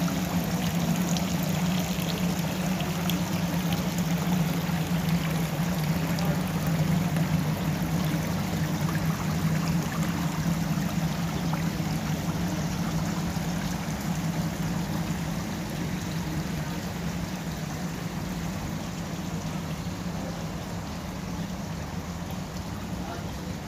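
Garden water-feature fountains trickling and splashing steadily over a low steady hum, growing gradually fainter toward the end.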